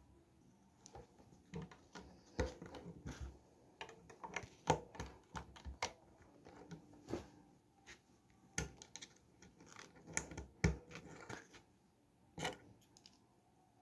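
Plastic Lego bricks clicking as they are pressed together and handled by hand: irregular sharp clicks and short scrapes of small parts, with no steady rhythm.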